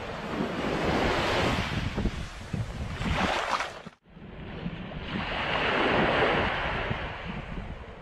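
Small waves washing up on a sandy beach, with wind buffeting the microphone. The sound cuts off suddenly about four seconds in, then a fresh wash swells up and fades.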